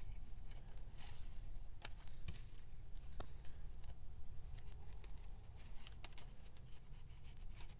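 Faint paper and plastic rustling with scattered light clicks as small paper cutouts are slid into a clear plastic sleeve pocket, over a steady low background hum.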